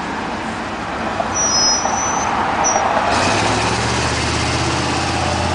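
Busy street traffic going by. Brief high squeals come about two seconds in, and from about three seconds in a heavy vehicle's engine runs steadily close by.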